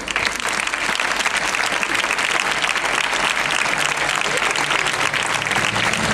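Crowd applauding steadily as an honoured team member is called up.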